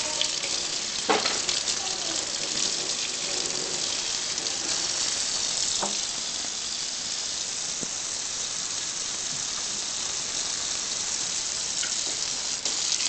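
Kitchen tap running steadily into a stainless steel sink, with a few sharp knocks, one about a second in and another just before six seconds.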